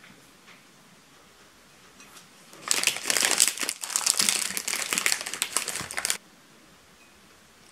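Plastic snack wrapper of a choco pie crinkling loudly as hands pull it open, starting a little under three seconds in and lasting about three and a half seconds before stopping abruptly.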